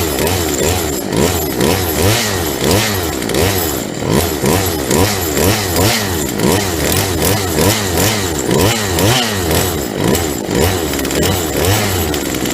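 Husqvarna 136 chainsaw's two-stroke engine running, its pitch swinging up and down about twice a second as the throttle is blipped repeatedly, on a test run after a crankshaft and seal repair.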